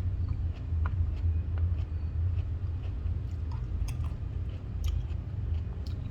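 Close-miked chewing, with scattered sharp clicks, over a steady low rumble that is the loudest thing throughout.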